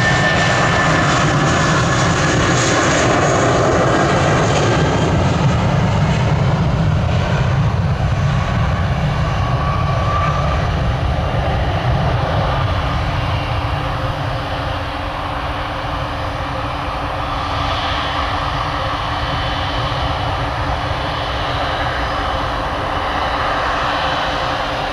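Airbus A320's twin IAE V2500 turbofans at takeoff power through the takeoff roll and climb-out: a loud, steady jet rumble with a whine on top. It eases off somewhat about halfway through as the aircraft climbs away.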